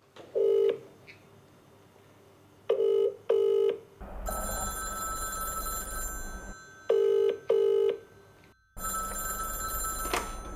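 Telephone ringing in short pitched bursts: a single ring, then two double rings. Near the end there is a sharp click as a payphone handset is lifted from its cradle. From about four seconds in, a steady hum and faint high whine sit between the rings.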